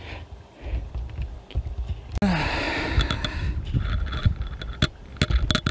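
Camera being handled and repositioned: low rumbling bumps on the microphone, a breathy sigh about two seconds in, then a quickening run of sharp clicks and knocks toward the end.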